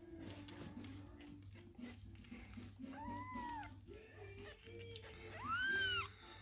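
A week-old kitten mewing twice, in high-pitched calls that rise and fall: a fainter mew about three seconds in and a louder one near the end.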